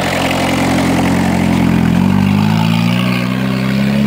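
Peugeot 306 1.9 turbo diesel engine held at revs, its pitch climbing slowly over the seconds, as the car tries to drive out of a wet ditch.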